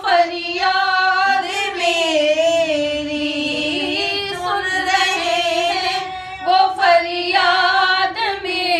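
Women's voices singing an unaccompanied Urdu devotional hymn, drawing out long wavering notes with only brief breaths between phrases.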